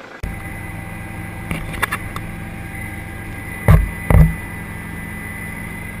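Steady helicopter cabin drone of the engine and rotor in flight, with a few short sharp pops, two louder ones about three and a half and four seconds in.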